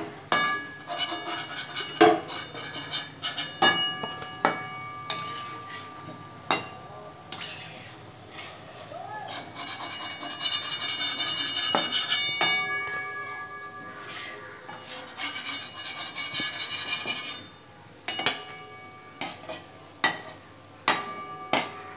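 A stainless steel slotted spoon knocking and scraping against a metal kadai while fried kalo jam balls are scooped out of hot oil, the pan ringing after each knock. The frying oil sizzles beneath, with two longer stretches of hiss about halfway through.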